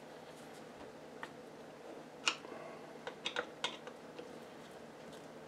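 Light clicks and taps from handling the Speed Queen wringer transmission housing and small tools on the bench: a single sharper click about two seconds in, then a quick run of four or five clicks over the next second and a half.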